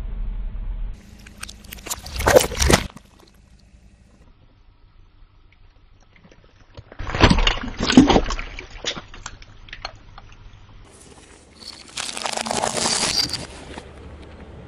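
Car tyre rolling over and crushing objects in three separate bursts: one about two seconds in, the loudest about seven seconds in as a cola-filled watermelon splits with a splash of liquid, and another near the end.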